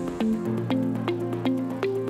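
Upbeat corporate-style background music with a steady beat of about four ticks a second, short melodic notes and a held bass note.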